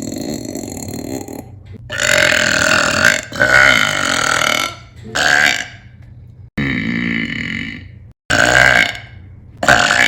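A woman burping loudly, several long burps one after another, some cut off abruptly between them.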